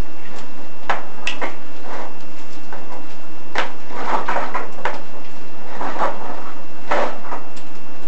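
Irregular knocks, clicks and scraping as a chimney inspection camera and its cable are lowered down a masonry furnace flue, bumping and rubbing along the way.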